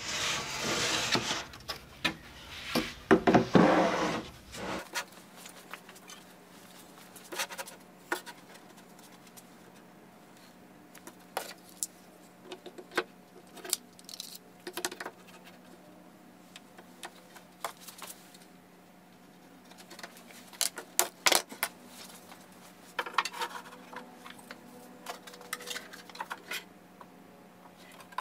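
Wooden 1x2 rails and a bar clamp being handled on a plywood panel: scattered knocks, clicks and scrapes, with a longer stretch of scraping and clatter in the first five seconds.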